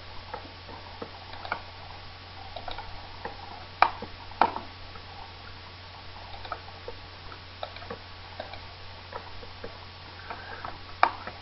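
Computer mouse clicking at irregular intervals, with two sharper clicks about four seconds in and another near the end, over a steady low electrical hum.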